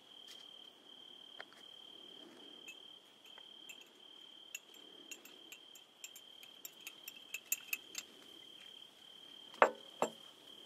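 A cricket singing one steady, high, unbroken trill. A run of light clicks and clinks comes through the middle, and two louder knocks come near the end.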